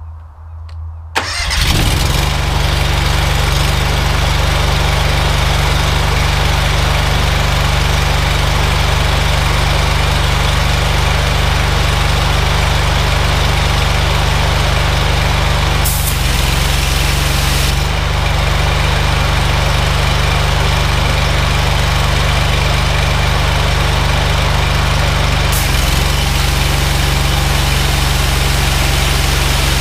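Honda GX690 V-twin petrol engine on a pressure washer, key-started: it catches at once about a second in and runs steadily. Its note shifts briefly past halfway. Near the end the lance is triggered and the high-pressure water jet hisses over the engine as it takes the pump's load.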